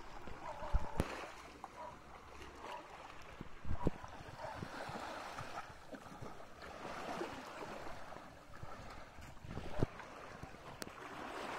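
Small waves washing and lapping on a shallow beach in a steady wash of water noise, with a few short low thumps over it.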